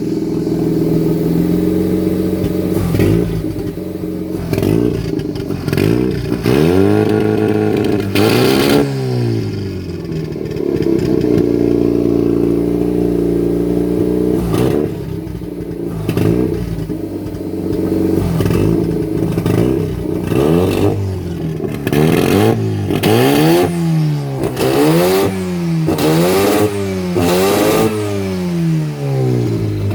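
Tuned car engine being free-revved in neutral, running on the owner's own ECU map. It gives one big rev that climbs and drops, then holds at raised revs for a few seconds, and near the end a string of quick blips about one a second, each rising and falling in pitch.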